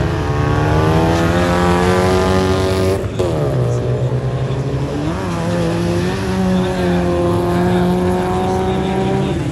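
Race car engines pulling hard at high revs. The note climbs for about three seconds, drops sharply as a gear is changed, then climbs again and holds steady at high revs, with a lower engine note running underneath.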